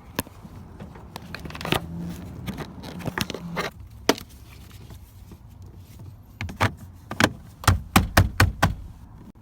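Plastic door-trim parts being handled and fitted: scraping and rustling, then a quick run of sharp clicks and knocks near the end as the power-window switch panel is pressed into the door panel.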